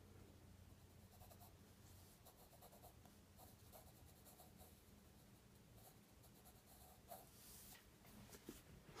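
Faint graphite pencil scratching across paper in short strokes, one a little stronger about seven seconds in, over a low steady hum.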